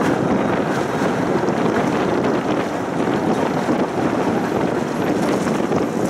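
A tram running steadily along its tracks, a continuous low running rumble, with wind rushing over the microphone.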